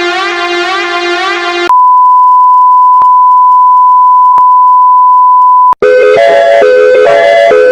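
Synthesized mock emergency-alert tones. A pulsing electronic alarm tone gives way, about two seconds in, to a single steady high beep held for about four seconds that cuts off abruptly. A repeating chime-like electronic jingle then starts.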